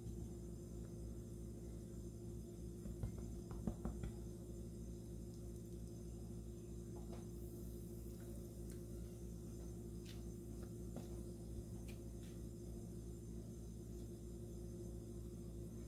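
A steady low electrical hum throughout, with a few soft knocks and taps around three to four seconds in as raw chicken wings are dredged and shaken in flour in a plastic bowl, and a handful of faint ticks later.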